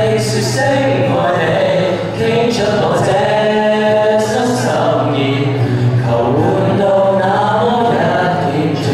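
Three teenage boys singing a song together in harmony through microphones, with long held notes, accompanied by an acoustic guitar.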